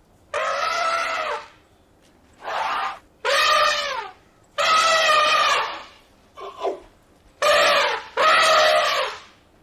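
A run of loud, harsh animal calls, about seven in a row, each lasting half a second to a second and a half with short gaps between them.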